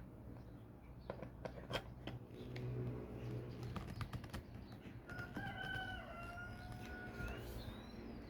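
A rooster crowing once in the background about five seconds in, one long call that sags in pitch at the end, with a few faint clicks earlier on.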